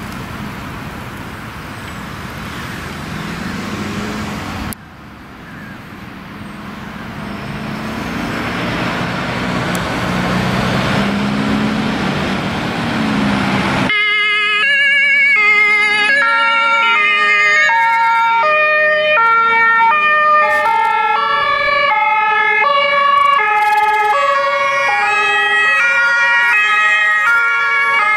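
Emergency vehicles' engines and road noise, the engines rising as they pull away. Then, about halfway in, several German two-tone sirens (Martinshorn) sound together, each stepping back and forth between two pitches.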